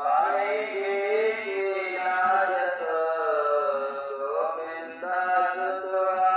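A voice chanting in long, held, sliding notes, like a devotional chant, starting suddenly and dipping briefly about five seconds in.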